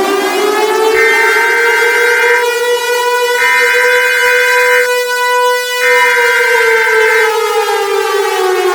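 Civil defense siren holding a steady wail, then winding down in pitch over the last couple of seconds. A higher steady tone sounds over it three times, each about a second and a half long, with short gaps between.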